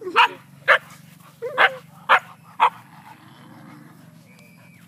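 Siberian husky barking: five short, sharp barks in quick succession over the first three seconds, some with a whine leading into them.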